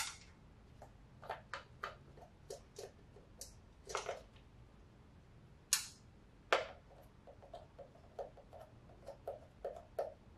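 Irregular light clicks and small metallic taps as the acorn bolts on the plug wire cover of a Honda B18C1 engine are worked loose and handled, with a few sharper clicks and a quicker run of small ticks near the end.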